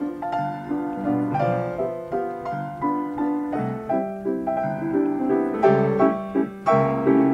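Upright player piano playing an 88-note paper roll: a busy tune of quick notes and chords, with two loud accented chords near the end.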